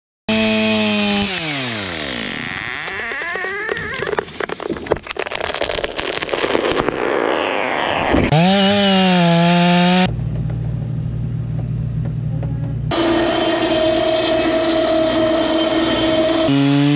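Engines of machinery in a quick series of cut-together clips: one winds down, a stretch of rough, crackling noise with clicks follows, then an engine revs up and several run steadily at different speeds.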